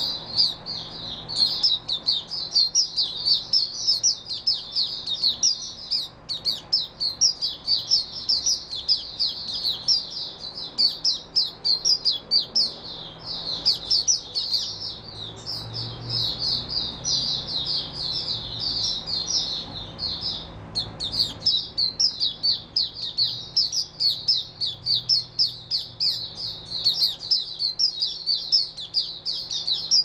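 White-eye singing a long, fast, high-pitched twittering song that runs almost without a break, pausing only briefly a few times.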